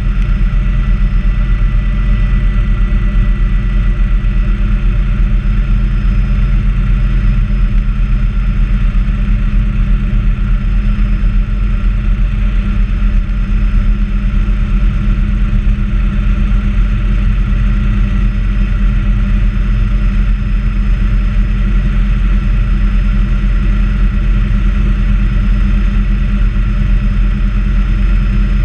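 Bell 206A helicopter heard from inside its cabin, its turbine engine and rotors running steadily: a loud, even low rumble with a thin steady whine above it.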